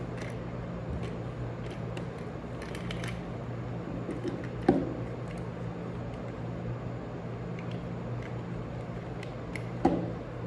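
Light clicks and two sharper knocks from handling a jump rope and its plastic handles while adjusting the rope's length, over a steady low hum.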